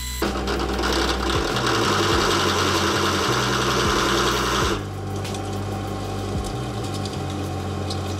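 Pillar drill motor running as the bit cuts through 3 mm aluminium plate, a steady hum under a hissing cutting noise that eases off a little after four and a half seconds.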